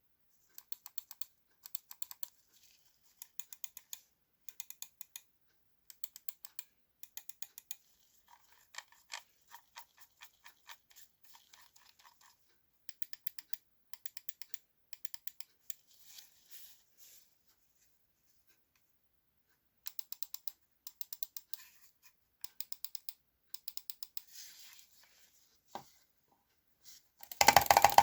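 VXE R1 Pro gaming mouse buttons clicking in quick runs of several clicks, with short pauses between runs and a silent stretch a little past the middle. A much louder, fuller sound comes in just before the end.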